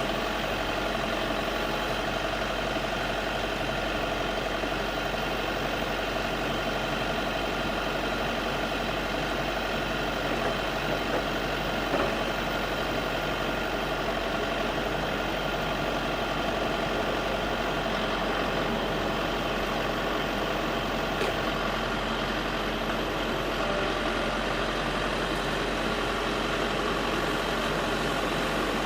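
Backhoe engine running steadily at a constant, even speed.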